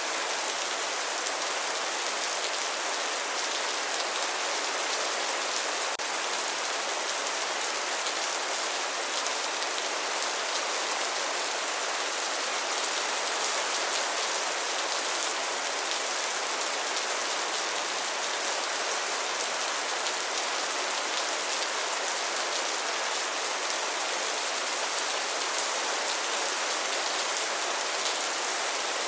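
Steady rain falling and pattering on a surface, an even hiss of many small drops that holds level throughout.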